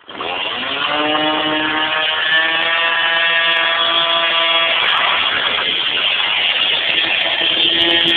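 Gas weed eater (string trimmer) engine starting suddenly and running steadily, its pitch rising a little in the first second. About five seconds in the steady tone breaks up into a rougher, noisier sound, and it steadies again near the end.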